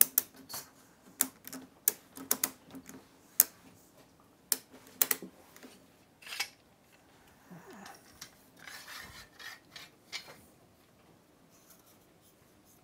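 Irregular sharp clicks and knocks of wooden workpieces and tools being handled, with a stretch of rubbing and scraping about eight to ten seconds in.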